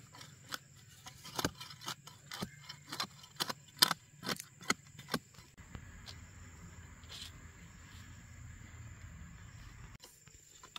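Metal blade of a long-handled digging tool chopping and scraping into dry, hard-packed soil, a quick irregular run of sharp strikes. The strikes stop about five and a half seconds in, leaving a quieter steady background.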